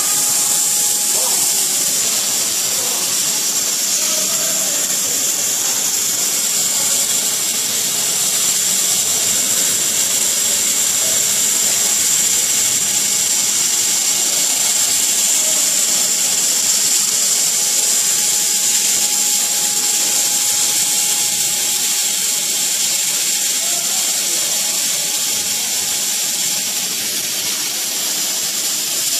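CO2 laser cutting machine at work cutting acrylic sheet: a steady hiss with a high whine and a faint steady tone underneath, from the machine's air and fans.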